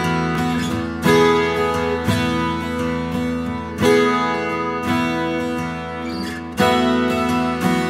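Background music of a guitar strumming chords, with a strong strum about every three seconds, each chord left to ring and fade.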